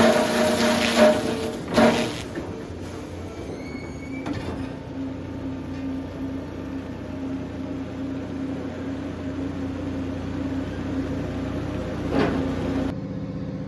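Sawmill machinery running. A loud, clattering stretch with a sharp knock in the first two seconds settles into a steady hum with one low tone. The sound changes abruptly near the end.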